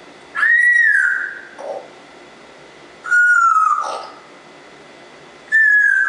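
Congo African grey parrot whistling three clear notes, each about a second long and gliding slightly down in pitch, the middle one lower than the other two.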